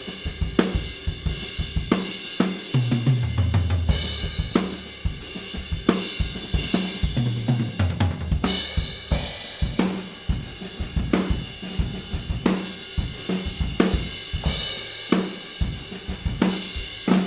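Recorded acoustic drum kit playing a steady groove: kick, snare and hi-hat with cymbal wash. Low tom notes ring out a few times.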